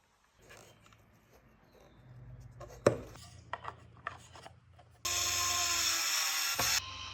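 Wood being handled and rubbed, with a few sharp clicks and taps, then about two seconds of a loud, steady rasping hiss that cuts off abruptly.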